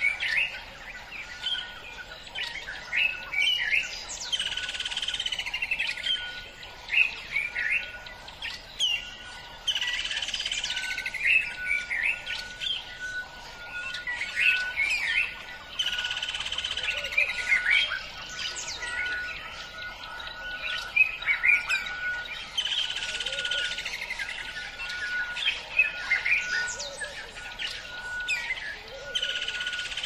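Several wild birds chirping and whistling together, with busier bursts of song coming back about every six seconds, over a short note repeated evenly about twice a second.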